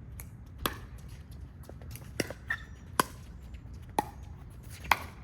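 Pickleball rally: sharp pops of paddles hitting the plastic ball, about one a second, the last one the loudest.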